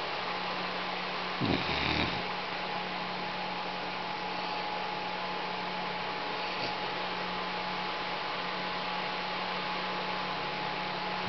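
A sleeping pet snoring: one snore about a second and a half in, over a steady hum.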